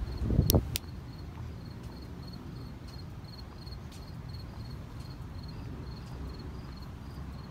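Insect chirping: a short, high chirp repeating steadily over a low, steady rumble. A brief thump with two sharp clicks comes about half a second in.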